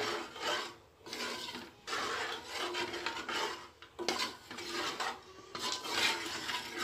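A metal spoon scraping and stirring through thick curry in a metal pot, in repeated strokes of about one a second.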